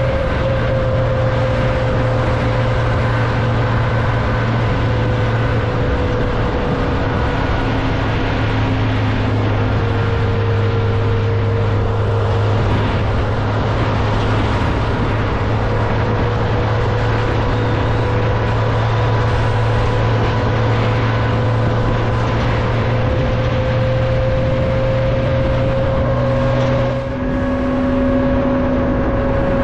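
Car engine and road noise while driving at a steady pace, a continuous hum with a held engine tone; the engine note dips and changes briefly near the end.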